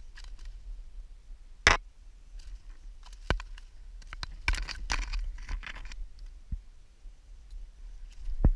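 Handling noise while a hooked bass is unhooked by hand: a few sharp knocks and clicks, with a flurry of rustling and clicking about halfway through.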